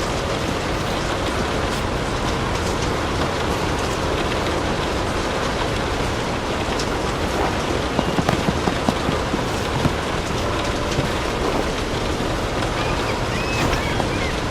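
Steady rain falling. About eight seconds in comes a quick run of sharp pops, the crackling of a wood fire, with a few lone pops elsewhere.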